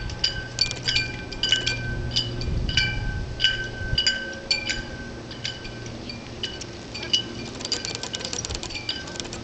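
A small metal bell ringing in an even rhythm, about two strikes a second, each strike giving the same ringing tone, the strikes growing sparser near the end, over a low steady hum.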